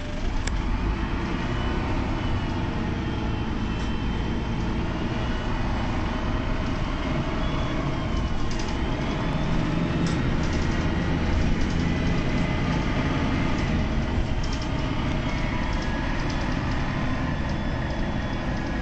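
Mercedes-Benz O405GN articulated bus driving, heard from inside the passenger cabin: its six-cylinder OM 447h diesel engine runs steadily under road noise. A faint high whine shifts in pitch about 8 seconds in.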